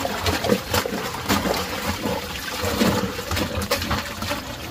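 Water splashing and trickling, with irregular clicks and knocks.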